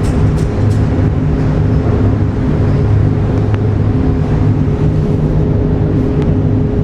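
Steady low mechanical hum with a constant drone and a few faint clicks; no shots.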